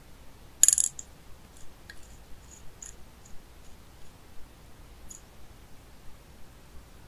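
Small hard snail eggs dropped into a small black dish, clicking against it: a sharp cluster of clicks about half a second in, then scattered light clicks for a few seconds.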